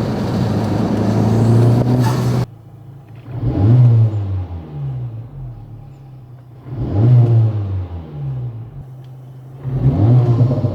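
Turbocharged Honda K20C1 four-cylinder engine revved three times, about three seconds apart, each blip rising and then falling back to idle. Before the first blip, a loud steady rush of driving noise cuts off suddenly about two and a half seconds in.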